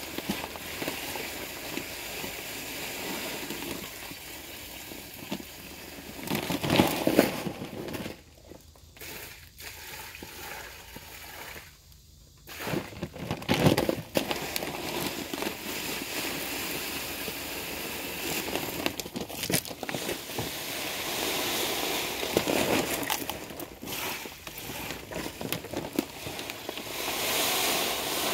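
Water softener salt crystals being poured from a plastic bag into a bucket of water, with the bag crinkling and rustling. It gets louder about 7 and 14 seconds in.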